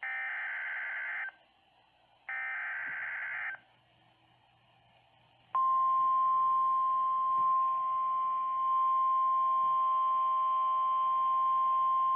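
Emergency Alert System / NOAA Weather Radio tones. First come two of the three warbling data bursts of a SAME digital header, each about a second long. After a pause of about two seconds, the steady 1050 Hz weather radio warning alarm tone starts about five and a half seconds in, signalling that a new warning, here a severe thunderstorm warning, is about to be read.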